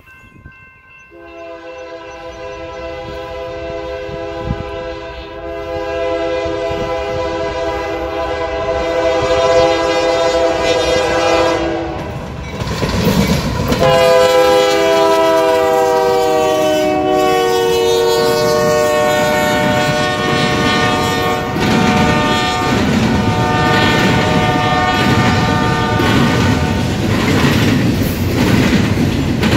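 Union Pacific diesel locomotive horn sounding two long blasts as the train approaches and passes. The horn grows louder and its chord slides down in pitch as the lead locomotive goes by. After that the rumble of the locomotives gives way to the clickety-clack of double-stack intermodal cars rolling past.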